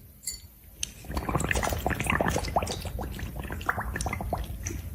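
Wet liquid sounds: a quick, irregular run of small splashes and drips that starts about a second in.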